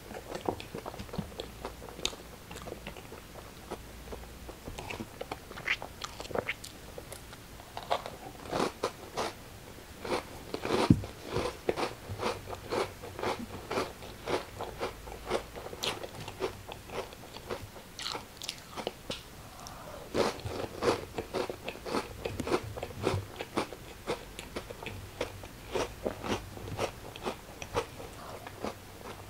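Close-up chewing of crunchy crackers: runs of crisp, irregular crunches with short pauses, the loudest crack about eleven seconds in.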